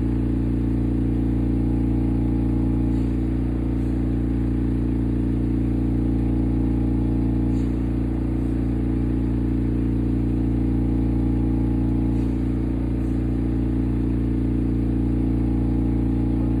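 Steady low mechanical hum with several fixed tones, unchanging throughout.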